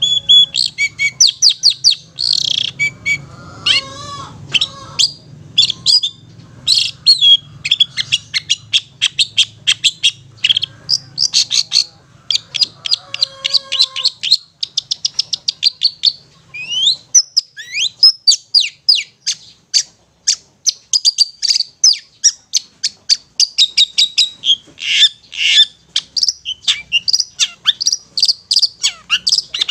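Long-tailed shrike (cendet) singing its 'ngetet' chatter: fast runs of short, sharp, high notes, with a few sliding whistled notes a little past the middle.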